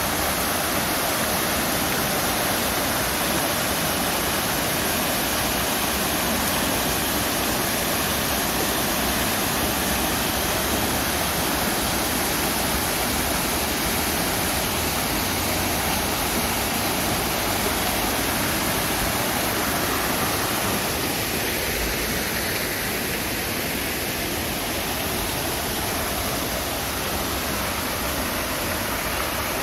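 Steady rushing of fast-flowing spring-fed stream water, easing slightly in the last third.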